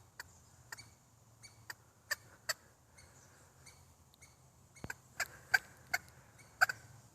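Squirrels in the trees giving sharp alarm chips, a string of short calls at uneven intervals, louder in the second half: their alarm at coyotes passing close by.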